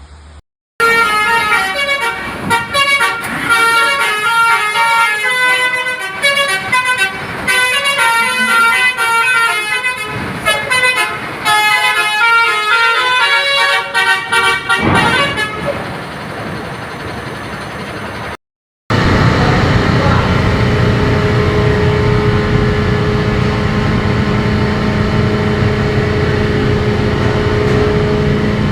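Bus telolet horn playing a quick, stepping multi-note tune for about fifteen seconds. After a short break it gives way to a steady engine drone.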